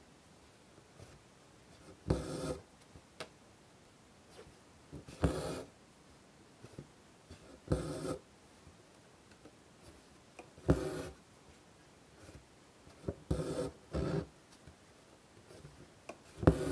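Hand embroidery with a needle and white thread through fabric stretched in a hoop, stitching a flower petal. About seven separate stitches, one every two to three seconds, each a short tick as the needle goes through, then a brief scratchy drag as the thread is pulled taut.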